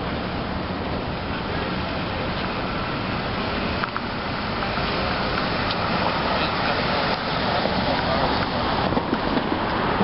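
Street ambience of passing car traffic and indistinct voices of people nearby, a steady noisy wash that grows slightly louder about halfway through.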